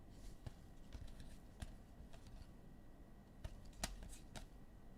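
Faint, irregular light clicks and taps, a few sharper ones about a third of the way in and near the middle of the last half.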